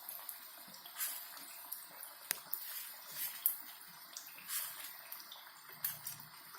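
Vermicelli-coated potato cutlets frying in hot oil: a steady sizzle broken by irregular sharp crackles and pops.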